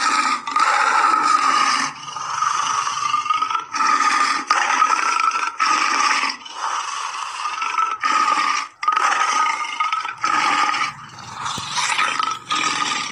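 Harsh animal calls, repeated over and over with short breaks every second or two, each holding a fairly steady pitch.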